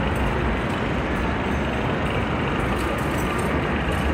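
Steady low rumbling background noise of a large indoor hall, with no single clear source standing out.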